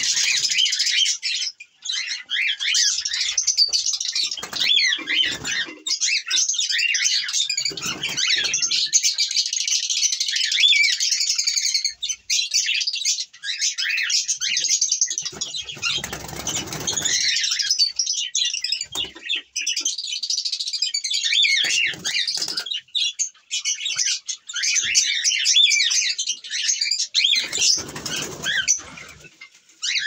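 A flock of cockatiels in an aviary chirping and calling continuously. Several short bursts of wing flapping break in, the longest about halfway through.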